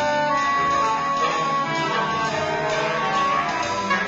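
Live instrumental music from a saxophone ensemble with keyboard and bass, several held notes layered over one another.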